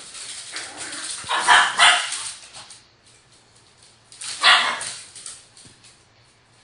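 Small pet dogs barking during play over a ball: a burst of barking in the first three seconds, loudest about a second and a half in, and another loud bark about four and a half seconds in.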